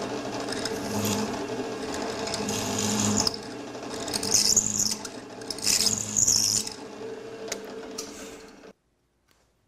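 Drill press running with a 1/8-inch bit, boring dowel holes into the mahogany case side. The steady motor hum is broken by several louder bursts of cutting noise as the bit is fed into the wood, and it stops suddenly near the end.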